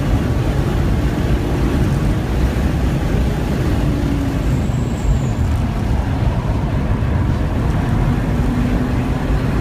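Inside the cabin of a 1998 BMW E36 M3 under hard track driving: its 3.2-litre straight-six running at speed over heavy tyre and wind noise. The engine note falls a little past the middle as the car slows for a corner, then rises again near the end.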